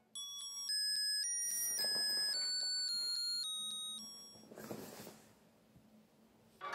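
Background music: a simple tune of clear, beep-like notes played one after another, which fades out about four seconds in and leaves near silence.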